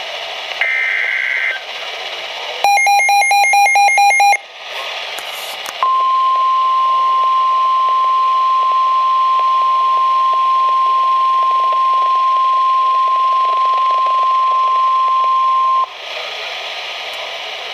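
Emergency Alert System broadcast on weather radio, announcing a flood warning. It opens with the end of a SAME digital header burst, a warbling data squawk, followed by a rapid run of beeps. Then comes the steady 1050 Hz warning alarm tone, held for about ten seconds, and it cuts off into radio hiss.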